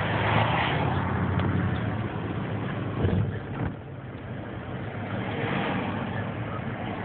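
Car driving across a bridge, heard from inside: a steady road and engine hum with rushing air. It drops noticeably quieter a little under four seconds in.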